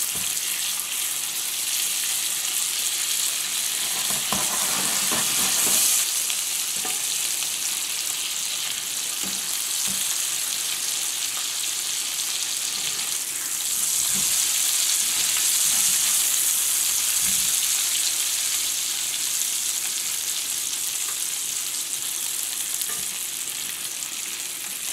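Boiled potatoes frying in oil and foaming butter in a frying pan: a steady sizzle, with occasional knocks of a slotted spatula stirring and turning them.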